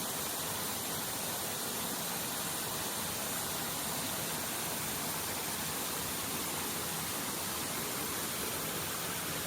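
Rushing water of a mountain stream, a steady even hiss.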